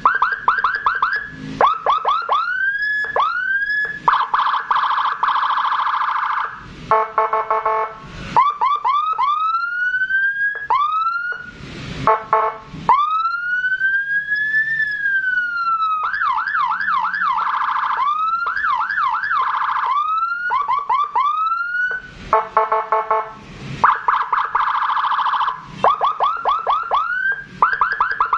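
Electronic police escort siren with Whelen Alpha tones, cycling through its patterns: quick rising whoops, one slow wail rising and falling about halfway, fast warbling yelps, and several stretches of a harsh buzzing horn tone.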